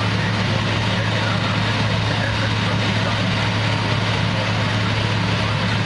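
Concrete mixer truck's diesel engine running steadily, a constant low hum under an even mechanical rumble.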